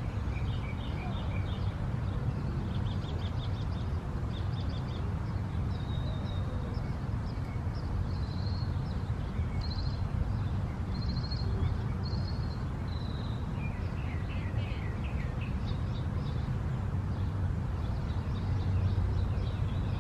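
Small birds chirping and trilling in short repeated phrases over a steady low rumble.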